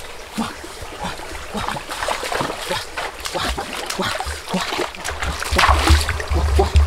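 Shallow rocky stream trickling while a person wades and steps through it, with irregular small splashes and knocks of feet on wet stones. A low rumble joins about five seconds in.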